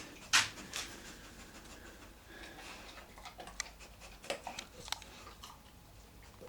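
Dog panting, with a sharp tap about half a second in and scattered lighter clicks after it.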